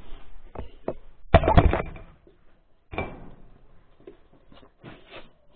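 Knocks and bumps of the camera being knocked over onto its side, with a heavy thud about a second and a half in and another sharp knock about three seconds in, with lighter clicks between.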